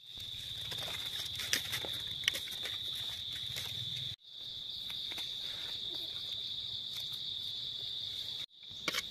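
A steady, high-pitched chorus of forest insects, held on one unbroken tone, with scattered small clicks and rustles in the leaf litter. The sound cuts out for an instant twice, about four and eight and a half seconds in.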